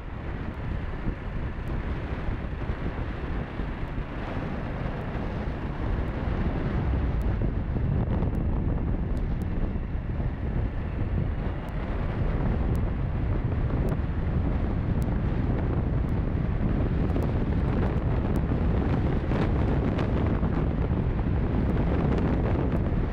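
Wind rushing and buffeting over the microphone of a Piaggio Liberty scooter on the move, with the scooter's running noise underneath. It gets somewhat louder and steadier about halfway through.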